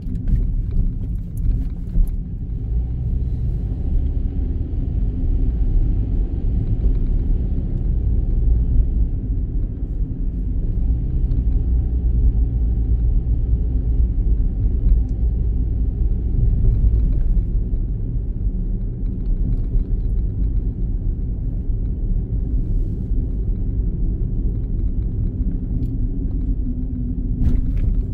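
Steady low rumble of a car being driven, engine and tyre noise heard from inside the cabin.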